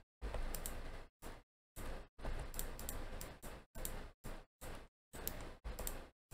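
Computer keyboard and mouse clicks in about ten short bursts, with dead silence between them.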